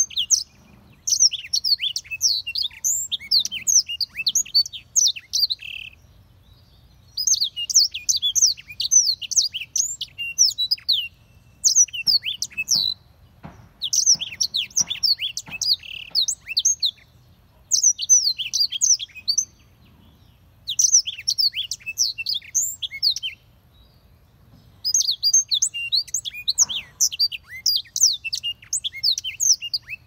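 Black-throated canary singing: fast, high twittering phrases in bouts of a few seconds, with short pauses between them.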